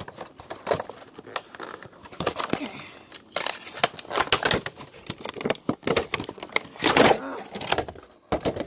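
Action-figure packaging being handled and pried open: irregular crinkling, rustling and small clicks of plastic and cardboard.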